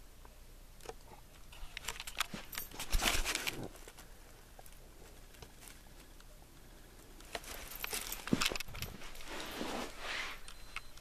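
Handling and movement noise from the person filming: scattered clicks and rustling, with a louder burst of rustling about three seconds in and another from about eight to ten seconds in.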